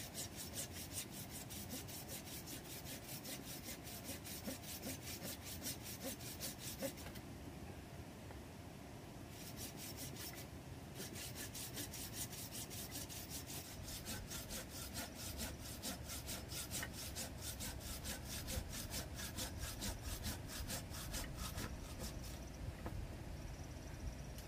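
A machete blade scraping and shaving a wooden stick in quick repeated strokes, several a second. The strokes pause about seven seconds in and again briefly a few seconds later, then thin out near the end.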